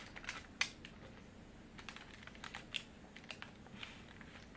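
Faint, scattered clicks and crinkles of a foil snack wrapper being handled, about a dozen light ticks spread unevenly over a few seconds.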